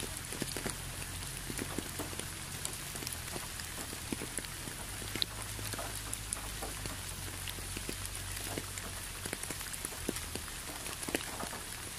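Steady rain falling: a constant hiss with many separate drops striking close by, over a steady low rumble.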